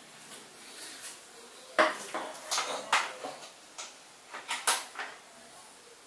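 A run of sharp clicks and knocks from hard objects being handled and set down, about seven in three seconds, starting a little under two seconds in.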